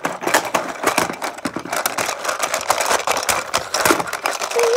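Plastic toy being handled and pushed about, giving a rapid, irregular clicking rattle.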